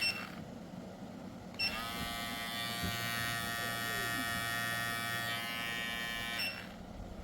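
Wmark NG-130 cordless hair clipper switching off with a short beep, switching back on with a beep about a second and a half in, its motor buzzing steadily, then switching off with a beep near the end. The beeps are too loud.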